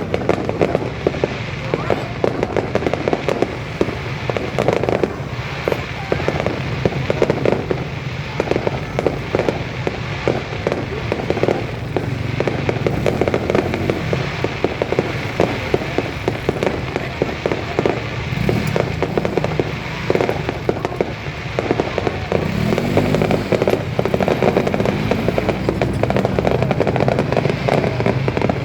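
Aerial fireworks display in a dense closing barrage: a continuous rapid crackle of many bangs and pops, with no pause.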